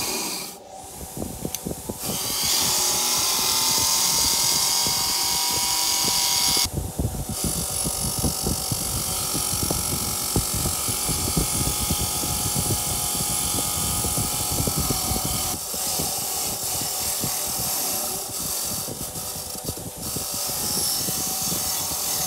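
Xceed EX25BG 250 W bench grinder running, its spinning wheel scratching rust off a steel C-clamp pressed against it, first the frame and then the threaded screw shaft. The grinding dips briefly about half a second in, then comes back with a strong high hiss that changes and settles lower after a few seconds.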